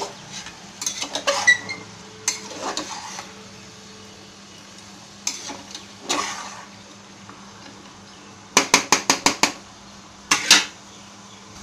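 A steel ladle stirs chunks of marinated chicken in a pressure cooker pot, making scattered scrapes and knocks of metal on the pot. Near the end comes a quick run of about seven knocks, then one more scrape.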